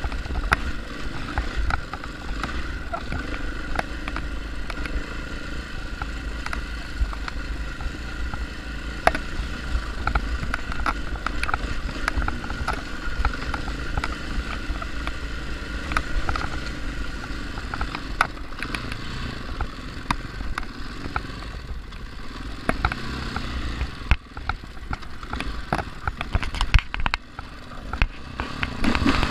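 Dual-sport motorcycle engine running at low, fairly steady revs while the bike crawls over rocky ground, with frequent clacks and rattles from the bike jolting over the rock, louder near the end.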